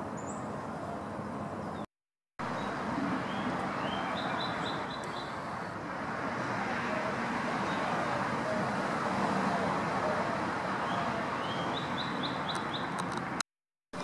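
Steady distant traffic rumble, with a songbird giving a quick run of short repeated chirps twice, about four seconds in and again near the end. The sound drops out to silence briefly twice.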